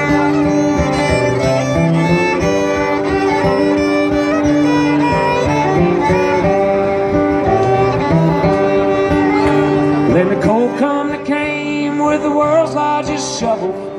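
Fiddle playing an instrumental break over a strummed acoustic guitar.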